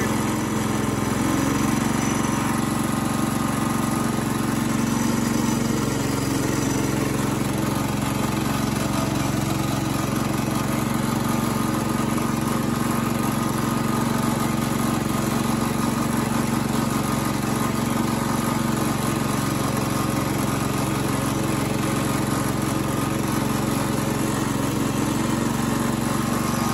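The Kohler 14 horsepower single-cylinder engine of a Cub Cadet 149 hydrostatic garden tractor running steadily while the tractor is driven. Its pitch shifts slightly in the first couple of seconds, then holds steady.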